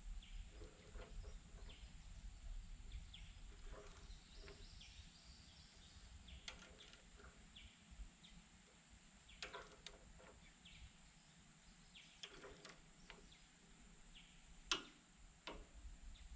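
Near silence with faint outdoor background: a few light clicks, the sharpest near the end, as a torque wrench tightens the bandsaw mill's blade-tension handle, with a few faint bird chirps.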